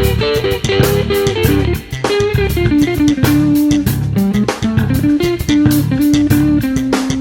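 Background music: guitar-led instrumental with bass and drums, a melody moving in held notes over a steady beat.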